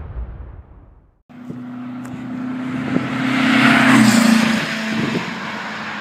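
A motor vehicle's engine passing by, growing louder to a peak about four seconds in and then fading, after music fades out in the first second.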